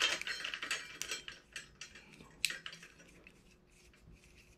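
New bicycle chain rattling and clinking as it is handled and fitted onto the chainring and cassette, with one sharper metallic click about two and a half seconds in.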